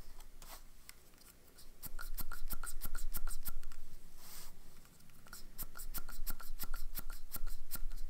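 An ink-filled needle syringe being worked over a paper notepad: a quick run of small clicks, about ten a second, in two stretches with a short hiss between them.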